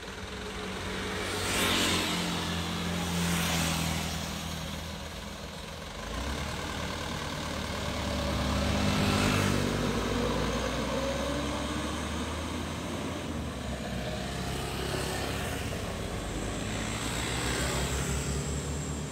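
Loaded light cargo truck's diesel engine accelerating away, its note rising and falling several times as it works through the gears.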